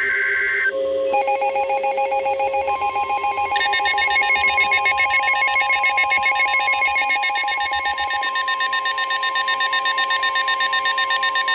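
Emergency Alert System alert tones. A short burst of buzzing data tones comes first, then a loud, rapidly pulsing electronic alarm of several stacked tones. A steady high tone joins the alarm about three seconds in and holds to the end.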